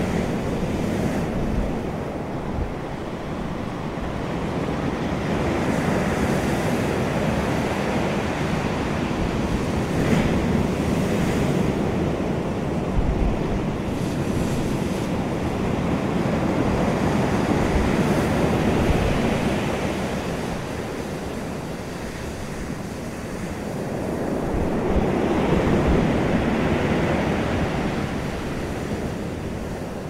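Ocean surf breaking and washing up a pebble beach. It is a continuous rush that swells and eases every several seconds as each wave comes in and draws back.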